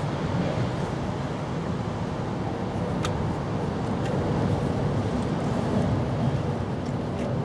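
Steady low background rumble, with one sharp click about three seconds in.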